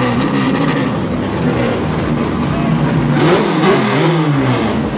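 Drag-racing car engine revving hard. The pitch climbs about three seconds in and drops again near the end.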